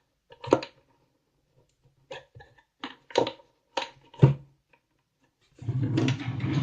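Small parts and tools being handled on a table during a bulb repair: a series of separate clicks and knocks, the loudest about four seconds in, then about a second of rustling and scraping near the end.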